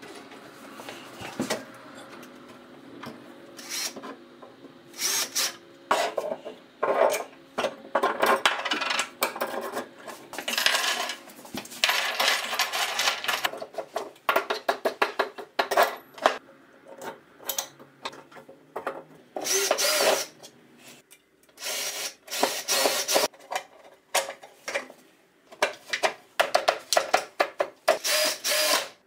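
Hands-on assembly work: irregular knocks of wooden parts and clinks of screws and small metal parts on a wooden tabletop, with several short bursts of a cordless drill-driver.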